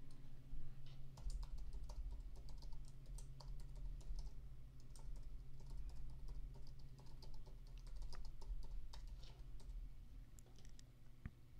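Typing on a computer keyboard: a run of irregular key clicks, with a steady low hum underneath.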